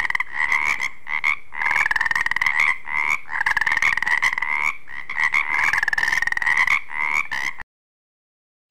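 Frogs croaking: a run of rapid trilled calls, one after another, that cuts off suddenly near the end.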